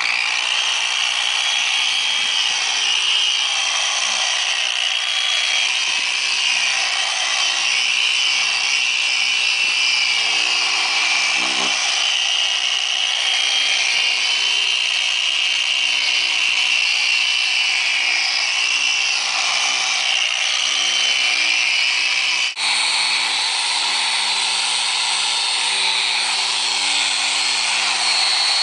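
Electric variable-speed polisher running steadily, buffing polish into a headlight lens with a light-cut polishing pad. About three quarters of the way through it dips for an instant, then runs on with a slightly changed pitch.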